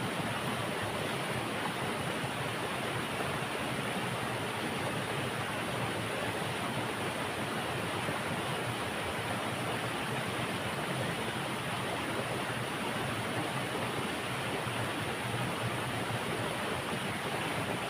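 A rocky river rushing steadily, a constant even hiss of flowing water.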